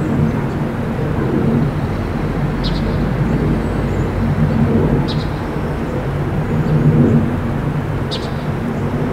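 Outdoor ambience on a snowy morning: a steady low engine-like hum and rumble, with three short high chirps spaced a few seconds apart.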